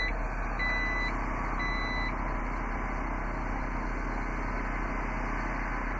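2015 Jeep Grand Cherokee's power liftgate closing: its warning chime beeps, each beep about half a second long and about once a second, stopping about two seconds in while the gate keeps lowering.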